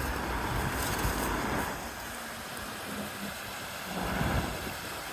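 Steady rushing of a swollen, flooded stream, with wind rumbling on the microphone; a little louder in the first two seconds and again briefly about four seconds in.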